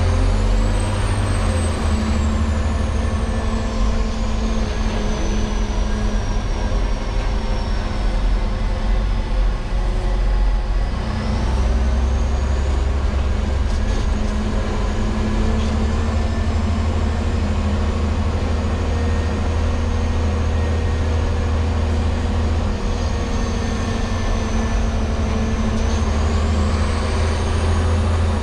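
LGMG CMT96 off-highway dump truck's diesel engine running steadily while the truck is driven, with a faint high whine that slowly falls and then rises again near the end.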